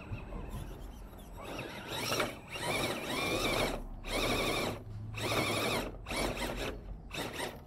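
Scale RC rock crawler's electric motor and geartrain whirring under load as it climbs a dirt bank, in about six short throttle bursts with brief pauses between them, starting about a second and a half in.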